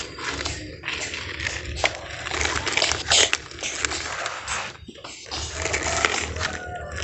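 Plastic toy excavator's bucket and tracks scraping and crunching through sand as it is pushed and dug by hand, in irregular scrapes.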